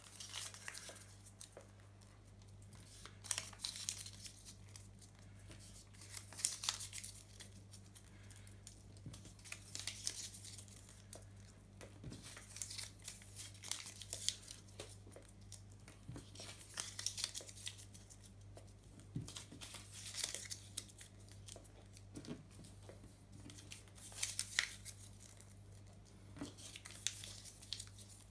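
Small slips of paper being crumpled by hand into balls, a short crinkling rustle every second or few.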